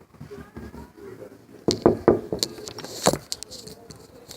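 A handful of sharp clicks and knocks with some rattling, bunched together between about two and three seconds in, over a faint low background.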